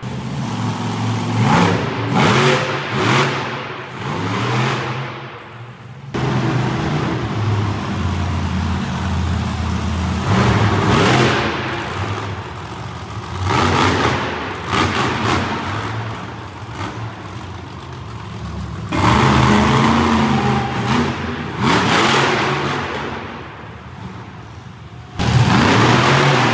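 Monster truck engines revving hard and dropping back over and over, the revs rising and falling. The sound changes abruptly a few times between shots.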